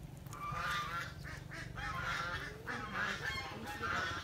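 A bird honking about five times at an even pace, over a steady low hum.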